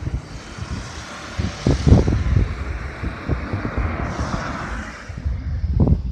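Wind gusting against the microphone in irregular low buffets, with a rushing hiss that swells through the middle and fades near the end.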